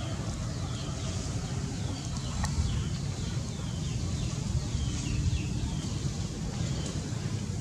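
Wind rumbling on the microphone, with small birds repeatedly giving short, high chirps that fall in pitch.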